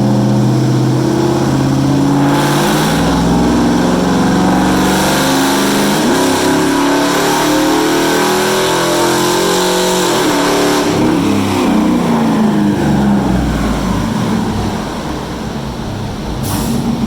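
2012 Chevrolet Silverado pickup's engine making a wide-open-throttle pull on a chassis dyno, with aftermarket exhaust and high-flow cats. The engine note rises steadily through the revs from about two seconds in, after the automatic transmission downshifts. About eleven seconds in, the throttle comes off and the note falls away.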